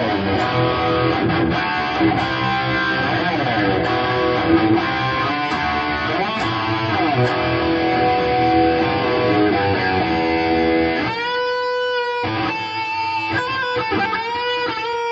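Fender American Standard electric guitar played through a Boss GT-10 multi-effects unit and a Marshall JCM 900 amplifier, with many string bends. About eleven seconds in, the playing changes to fewer, longer-held lead notes with vibrato.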